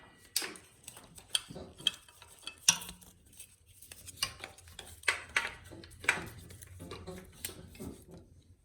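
Metal tools and parts clinking and clanking in a dozen or so irregular knocks, the sharpest about three seconds in.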